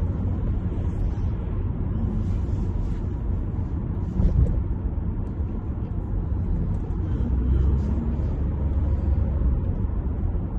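Steady low rumble of a car on the road, with a short bump about four seconds in.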